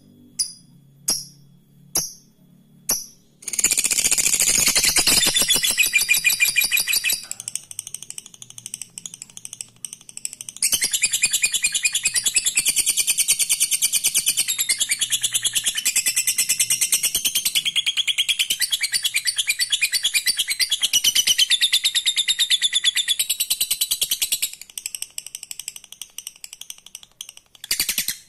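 Lovebird ngekek: a long, rapid, high-pitched chattering trill. A few separate chirps open it, then come two long trills, the second lasting about fourteen seconds, with softer chatter between and after.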